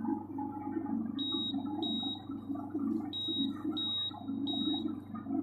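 Electric horn on a mock car-wiring board sounding continuously from its horn switch: a buzzy tone that starts at once and stops near the end. Five short high beeps come over it, and a low steady hum of the running motor and alternator lies underneath.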